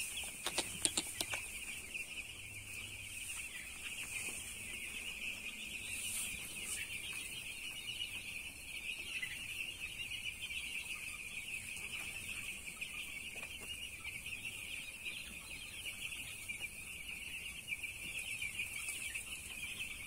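A large flock of eight-day-old broiler chicks peeping continuously, a dense, unbroken chorus of high chirps. A few sharp clicks come about a second in.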